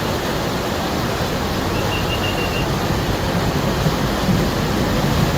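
Floodwater torrent rushing in a steady, loud roar of water noise.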